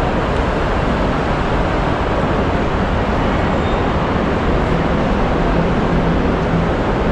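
MRT-3 light-rail train running, a steady rumble and hiss of wheels and motors. A faint steady hum comes in about two thirds of the way through.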